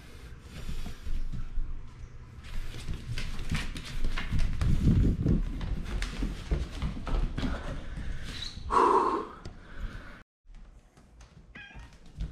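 Bengal cat meowing once about nine seconds in, with low thumps, footsteps and handling noise from someone moving around with a handheld camera. A short, high kitten mew comes near the end.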